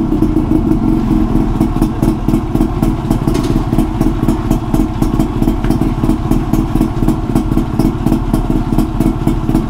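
Yamaha RX100's air-cooled 98cc single-cylinder two-stroke engine, fitted with an aftermarket expansion-chamber exhaust, running steadily after a kick start, with a fast, even stream of exhaust pulses.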